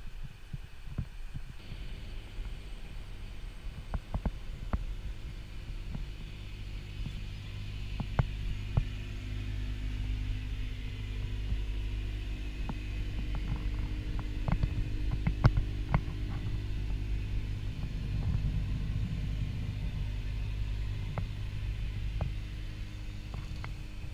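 Cat 329E tracked excavator's diesel engine idling with a steady low hum, with scattered clicks and knocks over it, the loudest about halfway through.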